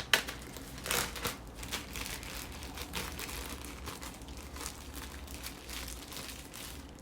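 Plastic bag crinkling in irregular bursts as it is handled and pressed to squeeze the air out before sealing.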